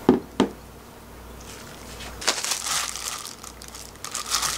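A wooden spoon knocks twice against a glass bowl as chili-paste sauce is scraped off it. Then, from about a second and a half in, a disposable plastic glove crinkles and rustles as a hand mixes the cold naengmyeon noodles with the sauce.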